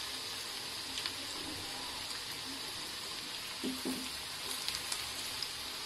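Batter-coated paneer pieces deep-frying in hot oil in a pan: a steady sizzle with a few small crackles.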